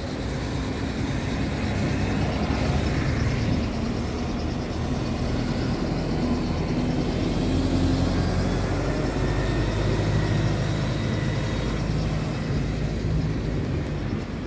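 Buses running and pulling past at close range, a steady low engine rumble with the engine note rising as one accelerates about halfway through.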